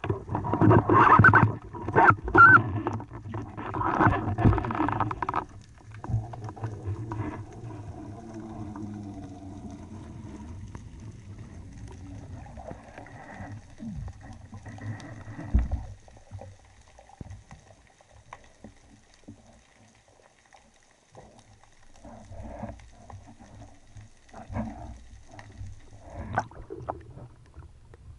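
Underwater commotion right after a speargun shot: a speared zebra seabream struggling on the spear shaft, with loud irregular knocking and scraping for about the first five seconds. Then quieter underwater rumbling and creaking, and a few short splashes near the end as the diver reaches the surface.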